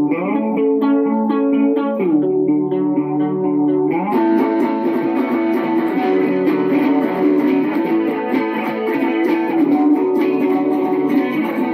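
A band playing a song led by guitar. Held chords slide to a new chord about every two seconds, and about four seconds in the sound gets fuller and brighter.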